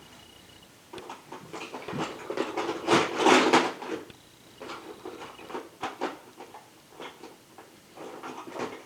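Plastic Lego bricks clicking and knocking together as a toddler fits them on, in a run of short irregular clicks, with a louder, short voice-like sound about three seconds in.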